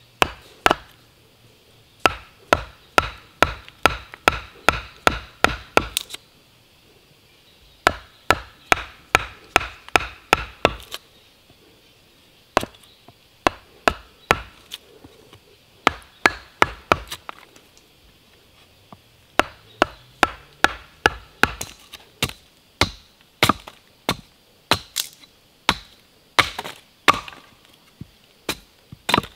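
A chisel being hammered into the end grain of a green log: sharp wooden knocks about three a second, in runs of a few seconds with short pauses. Near the end, a hatchet chops into a small branch.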